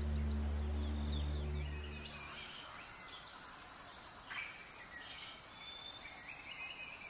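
Forest ambience: a steady high insect hiss with a few short bird chirps, after a low held drone stops about two seconds in.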